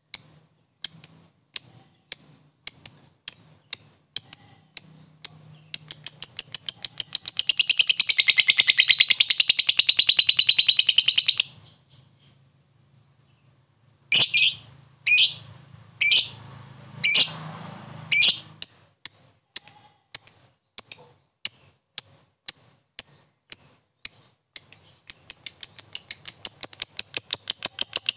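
Lovebird calling: sharp, short chirps about two a second (the 'ngetik' ticking), twice running into a long, rapid chattering trill (the 'ngekek'). The first trill lasts about five seconds and falls slightly in pitch. After a short pause come more chirps, and a second trill starts near the end.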